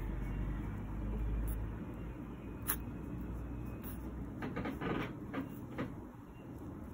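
A cloth rubbing and rustling over a newborn puppy's fur in short strokes, loudest in a run of scrapes a little past halfway, with one sharp click earlier. A low steady rumble sits underneath.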